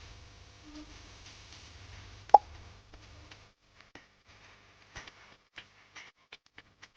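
Kitchen preparation sounds: a low steady hum, one sharp knock a little over two seconds in, then a run of light clicks and taps from utensils and dishes.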